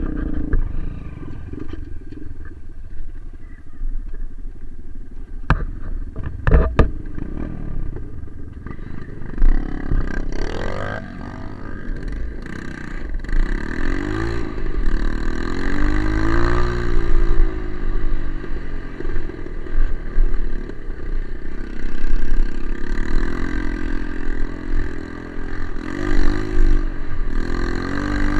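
Trail dirt-bike engine running, its pitch rising and falling again and again as the throttle is worked, from about a third of the way in. A few sharp knocks come before that.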